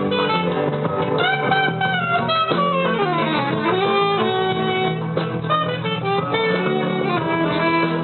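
A band playing live in rehearsal, guitar to the fore over a held bass, with a melodic lead line that slides down in pitch and back up midway through.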